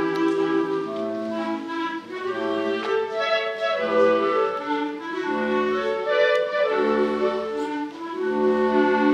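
Clarinet choir, soprano clarinets with bass clarinets, playing a waltz: held melody notes over moving inner parts, with low bass notes coming in about halfway through.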